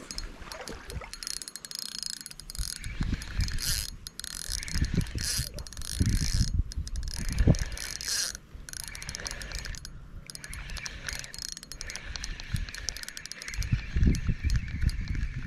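Small fixed-spool spinning reel being wound in, its gears whirring with fine rapid clicking as braided line comes in, in several spells with brief pauses. Bouts of low rumble come through around the middle and again near the end.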